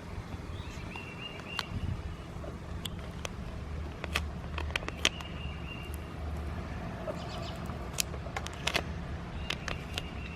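Transfer tape being peeled off a vinyl decal, giving scattered sharp clicks and crackles over a steady low outdoor rumble, with a few faint high whistling tones.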